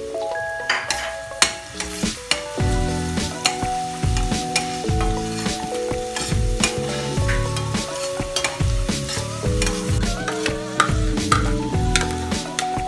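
Minced garlic sizzling in hot oil in a stainless steel pan, stirred with a metal slotted spatula that scrapes and clicks against the pan. Background music with a steady bass beat plays underneath, coming in about two and a half seconds in.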